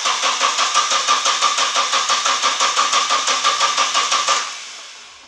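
Starter cranking a Nissan 240SX's four-cylinder engine over in a steady, even rhythm with a whine under it, without the engine catching, then stopping a little over four seconds in. The engine is not firing because, by the owner's reckoning, it isn't getting fuel.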